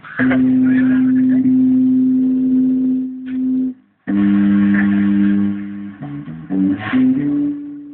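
Amplified electric guitar playing long sustained notes, each held about three and a half seconds, with a short break about four seconds in, then a few shorter notes near the end.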